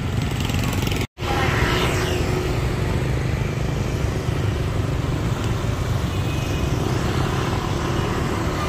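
Street traffic, mostly motorbikes and cars, running steadily past; the sound cuts out for an instant about a second in.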